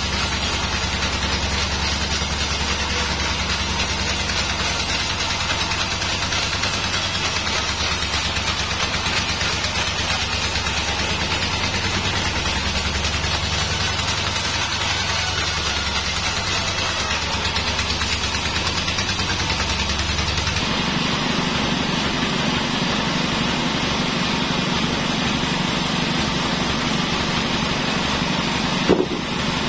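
Band sawmill running, a steady mechanical drone as a log is fed past the blade. The low hum changes pitch abruptly about two-thirds through, and a short sharp knock comes near the end.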